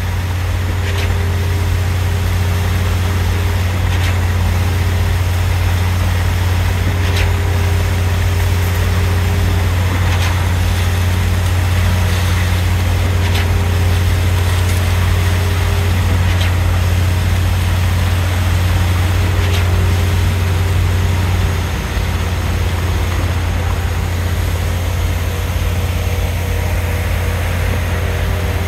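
Concrete pump truck's diesel engine running steadily under load, with a faint knock about every three seconds as the pump strokes concrete through the boom hose.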